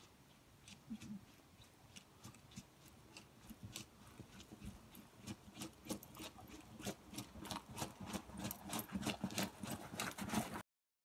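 Firefighter's boots crunching on packed snow, walking steadily at about two steps a second, the footsteps growing louder as he approaches. The sound cuts off abruptly near the end.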